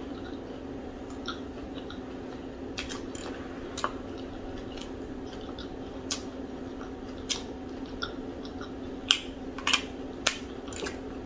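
Close-miked eating sounds: chewing with scattered sharp lip smacks and mouth clicks, a few louder ones near the end, over a steady low hum.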